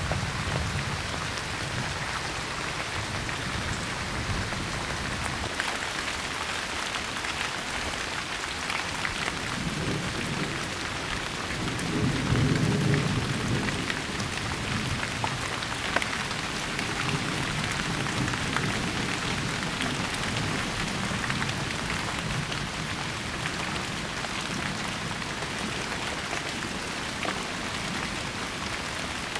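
Steady rain falling, with scattered drop ticks, and a low roll of thunder that swells and is loudest about twelve seconds in before fading.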